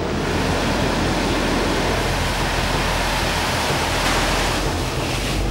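Harrier jump jet's Rolls-Royce Pegasus turbofan running, a steady rush of jet noise.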